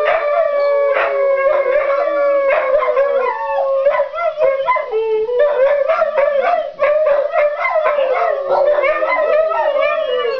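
Several huskies howling together in a greeting 'song': long, overlapping howls that hold and slowly slide in pitch, one drawn steadily downward, with short, sharp calls mixed in.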